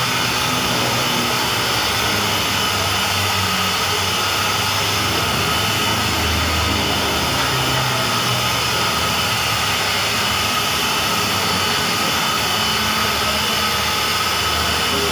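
Handheld electric car polisher running steadily, its motor giving a constant whine as the round pad buffs the paint of a car door.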